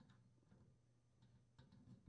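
Near silence with a few faint, scattered plastic clicks as the terminal cover of a microwave turntable motor is handled and pressed shut.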